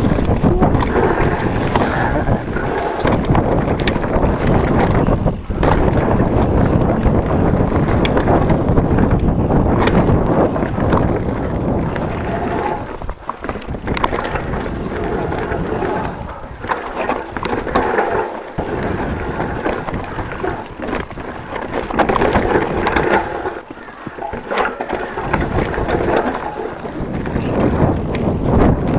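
Wind buffeting the microphone and the knobby tyres of a Giant Trance full-suspension mountain bike rumbling over a dirt forest singletrack at speed, with the bike's chain and frame rattling over bumps. The noise dips a few times as the pace eases.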